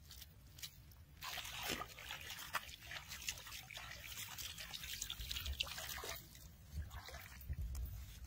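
Water pouring and splashing onto wet sandy ground, starting about a second in, with a trickling, crackly hiss.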